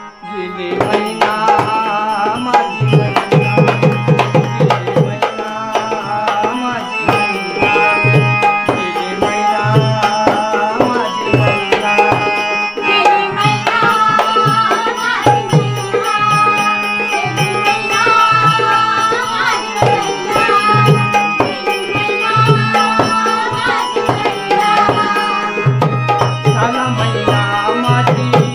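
Instrumental interlude of a Marathi folk song: an electronic keyboard plays a melody of long held notes over a fast dholki drum rhythm, with small brass hand cymbals keeping time.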